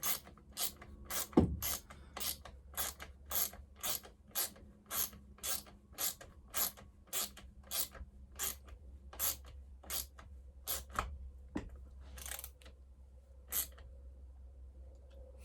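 Ratchet clicking in even strokes, about two a second, as a bolt that has just caught its threads is run into a chainsaw's anti-vibration mount. The clicks spread out and stop shortly before the end.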